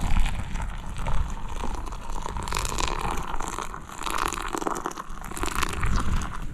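Camping gear being packed away: close, continuous crinkling, rustling and crunching of crumpled material, with many small crackles.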